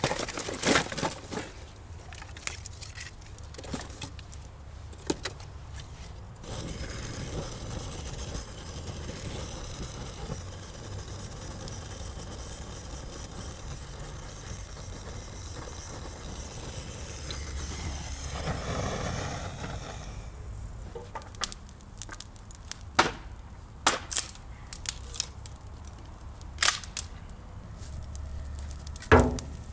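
Dry wood cracking and snapping in sharp, irregular reports. Between them a long stretch of steady hissing noise runs through the middle.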